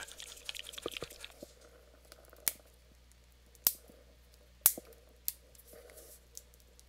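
Fingers picking at the plastic shrink seal on a hot sauce bottle's cap. There is a faint crinkle at first, then a few sharp plastic clicks about a second apart.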